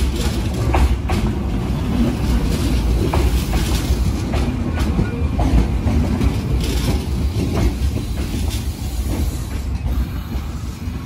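Tsurumi Line 205 series electric train rolling past close by: a steady low rumble of the motors and running gear, with the wheels clicking irregularly over rail joints.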